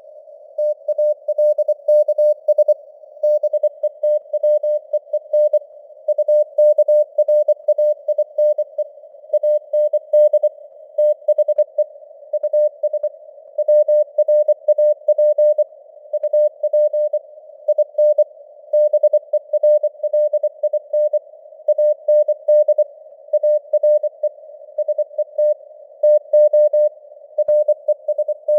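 Morse code at 24 words per minute: a single steady-pitched tone keyed on and off in quick dots and dashes, over a narrow band of hiss like a radio receiver's noise. The signal's strength fades up and down (QSB).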